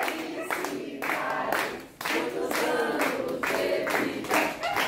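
A group of people singing a birthday song together while clapping in time, about two claps a second.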